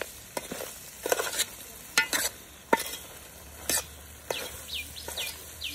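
Metal ladle stirring a thick goat-head curry in a large metal pot: repeated scrapes and clinks of the ladle against the pot over a low sizzle.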